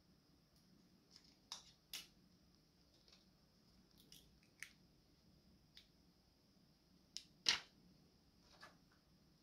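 Scattered light plastic clicks and taps from fingers handling an action camera's clear plastic waterproof housing, with one louder click late on, over a faint steady high whine.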